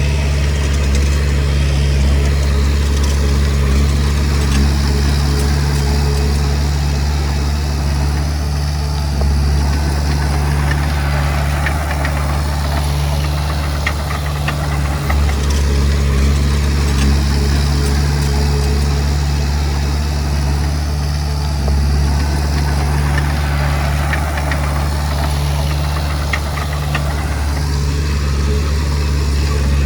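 Komatsu D20P bulldozer's diesel engine running steadily under work, its low drone constant while a higher clattering noise swells and eases every several seconds.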